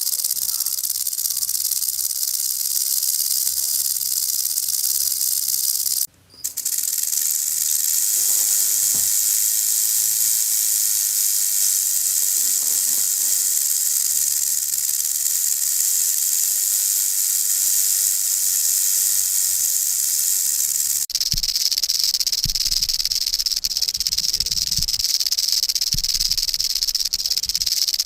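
Rattlesnake shaking its tail rattle in a continuous high buzz, the defensive warning it gives when threatened. The buzz breaks off for a moment about six seconds in and changes in tone about twenty-one seconds in, with low thuds beneath it from then on.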